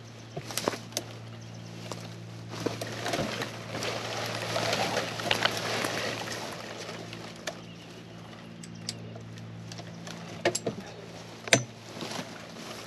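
Brush and branches rustling as someone moves about inside a bush, with a few sharp snaps and clicks. A steady low hum runs underneath.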